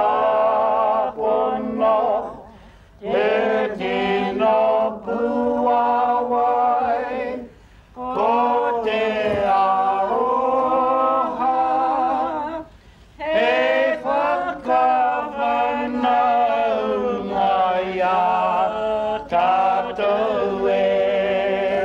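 A group of men and women singing a song together without instruments. They sing in long, held phrases with brief pauses between them.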